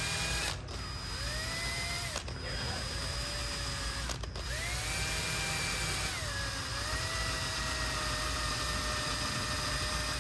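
Handheld rotary tool spinning a rubber valve stem against a painted saddlebag to rub off reflector adhesive. Its motor whines steadily; the whine breaks off briefly a few times and climbs back up in pitch, and it sags lower about two-thirds of the way through as the rubber is pressed in.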